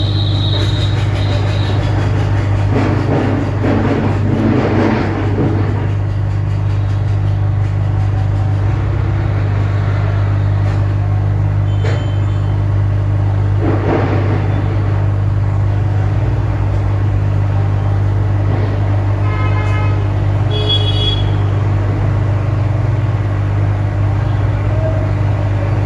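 Steady low electrical hum running throughout, with brief pitched honk-like tones about twenty seconds in.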